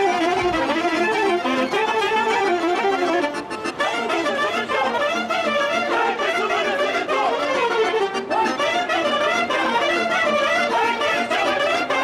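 Romanian folk band playing a fast, ornamented dance tune, violins leading over saxophones and brass.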